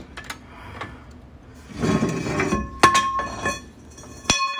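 Metal clinking while a jack lifts the rear suspension to line up a new strut. A scraping, handling stretch comes about two seconds in, then a sharp clink about three seconds in and another near the end, each ringing briefly.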